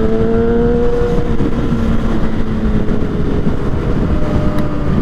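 Motorcycle engine running under way, its note rising slowly in pitch for about the first second and then settling and sinking into heavy wind noise on the helmet microphone.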